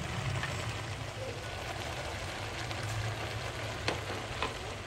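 Food sizzling steadily as it is stir-fried in a pan, with two sharp clicks near the end.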